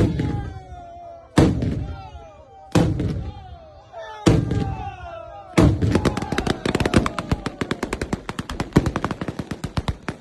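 Batteria alla bolognese firecracker chain going off: single heavy bangs about every second and a half, then from about five and a half seconds in a fast run of bangs, several a second.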